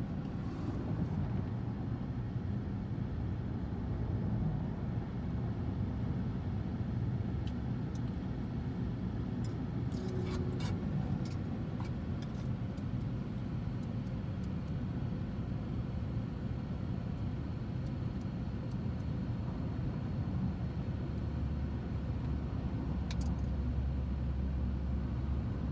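Steady low rumble of road and engine noise heard inside a moving car, with a few faint clicks about ten seconds in. The rumble grows heavier near the end.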